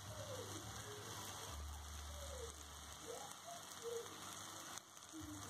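Onion-tomato masala sizzling gently in a kadai over a gas flame, a soft steady hiss. A few faint bird calls sound over it.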